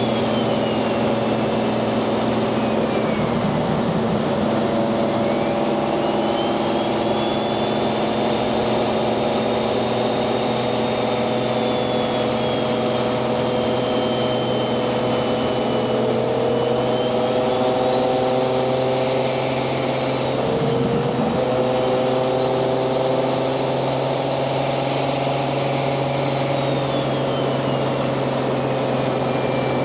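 Turbocharged Toyota 1JZ VVTi 2.5-litre inline-six in a Nissan 240SX cruising at a steady pace, with a high turbo whistle that slowly rises and falls with the throttle. The engine note breaks briefly about three seconds in and again about twenty-one seconds in.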